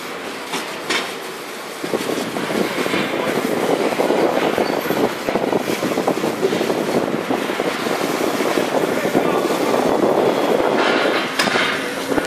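Water from a hose spraying onto a forklift's wheel and body and onto the wet pavement: a dense, spattering hiss that gets louder about two seconds in.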